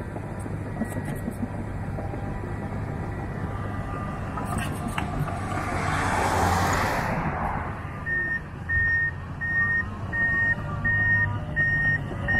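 Heavy diesel construction vehicle running with a low engine rumble and a loud hissing rush about six seconds in. From about two-thirds of the way in, its reversing alarm beeps steadily, about once a second, as it backs up.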